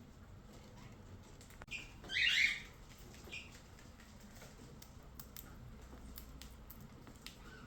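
Cockatiel giving a short, loud chirp about two seconds in, with quieter chirps just before and about a second after it. Faint ticks and scratches follow in the second half.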